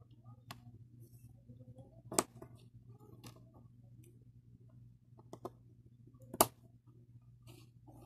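LEGO Technic plastic parts being snapped together and set down on a wooden floor: a few sharp clicks, the loudest about two seconds in and again past six seconds.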